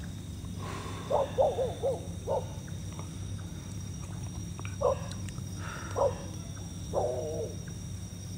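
Distant animal calls: short rising-and-falling cries, some in quick runs of three or four, repeating every second or so over a steady low hum.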